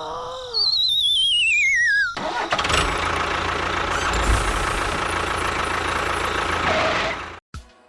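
A falling, wavering whistle, like a cartoon falling sound effect, lasts about a second and a half. It is followed by a loud, noisy engine-like rumble for about five seconds that cuts off suddenly.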